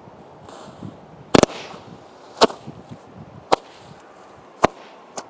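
Firework going off in a series of sharp bangs about a second apart. The first is a quick cluster of cracks, followed by four single bangs, the last one weaker.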